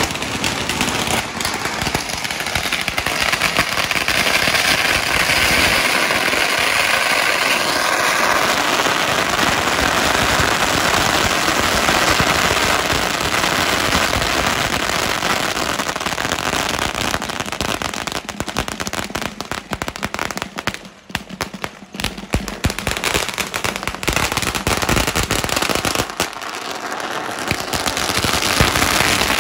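Long strings of firecrackers (bakuchiku) going off on the road in a continuous rapid crackle of bangs. The crackle thins out briefly about two-thirds of the way through and again near the end.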